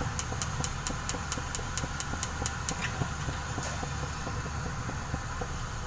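Gas stove igniter clicking rapidly and evenly, about four to five clicks a second, stopping a little under three seconds in as the burner is lit, over a steady low hum.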